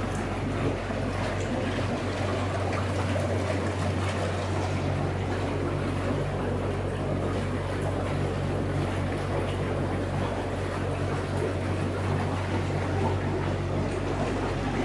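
A steady low machine hum under an even rushing noise, unchanging throughout.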